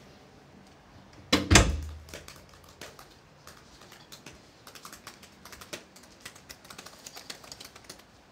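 Typing on a laptop keyboard: quick, irregular key clicks, busiest in the second half. A single loud thump about a second and a half in is the loudest sound.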